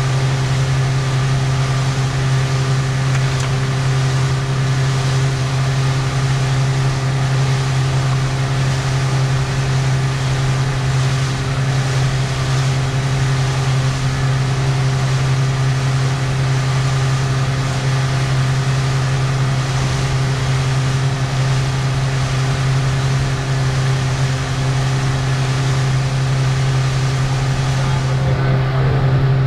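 Fishing boat's motor running steadily under way, a constant low drone with even overtones, under a rushing hiss of water and wind that thins slightly near the end.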